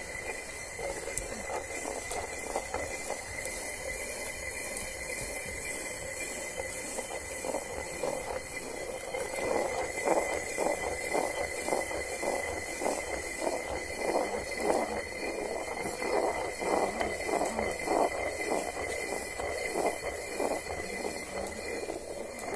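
Stone hand quern grinding rice: the heavy upper millstone turned round on the lower one by hand, giving a rhythmic grinding rumble about twice a second that grows louder from about eight seconds in, over a steady hiss.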